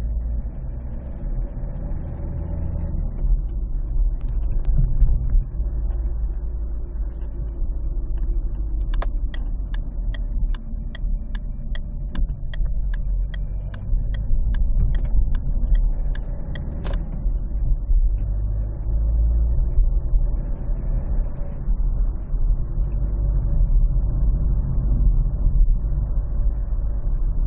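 Citroën C4 1.6 HDi four-cylinder turbodiesel running, a steady low rumble. For several seconds midway a regular ticking sounds, about two to three clicks a second, ending in a sharper click. The owner reports a clicking from this engine when accelerating between about 1700 and 3200 rpm.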